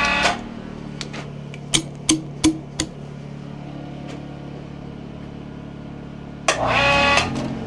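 Hoist winch motor whining briefly, stopping just after the start and running again for about a second near the end, while the log is rolled over. About 2 s in come four sharp knocks, over a steady low hum.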